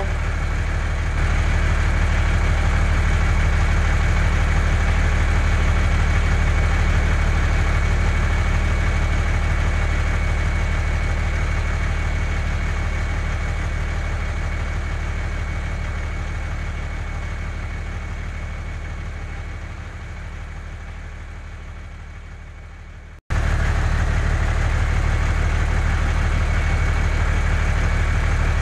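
Steady truck engine idling sound laid over the toy truck, a low even rumble with a faint high whine. It slowly fades down, cuts out for an instant about four-fifths of the way through, and starts again at full level.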